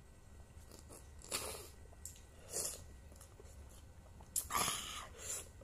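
Mouth noises of a person eating a sour lime slice: three short noisy bursts of sucking and breath, the last and loudest coming about four and a half seconds in and lasting about a second.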